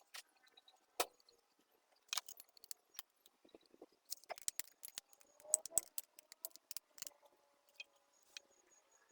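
Irregular metallic clicks and clinks of hand tools and bolts being handled while fitting the oil filter housing to a Land Rover TD5 engine, busiest in the middle.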